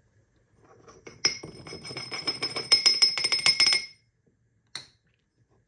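A fast run of taps on the MHW-3Bomber dosing shaker sitting on a dosing ring over an espresso portafilter, each tap with a bright metallic ring, knocking the ground coffee down out of the shaker into the basket. The run lasts nearly three seconds, and a single click follows about a second later.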